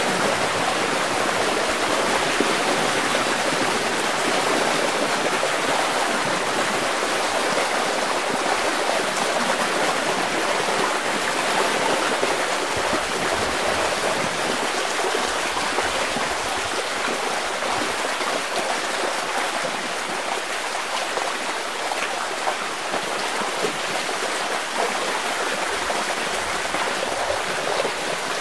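Floodwater rushing through the breach in an overtopped sand-and-gravel (noncohesive earthen) dam, a steady rush of water with no breaks, easing a little in the second half.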